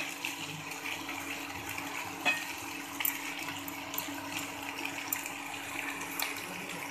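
Oyster mushrooms, onion and capsicum sizzling in a nonstick frying pan as they are stirred, with a spatula clicking against the pan now and then, over a steady low hum.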